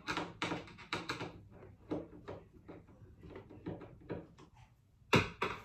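Irregular knocks and clicks of a wall-cabinet door and its hinge being handled and fitted, with a sharp, loud knock and a second one just after it about five seconds in.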